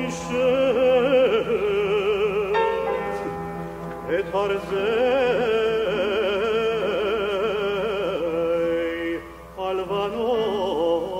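Male cantor singing cantorial chant in a full operatic voice with a wide vibrato, over steady held accompanying chords. The voice pauses briefly about nine seconds in, then comes back.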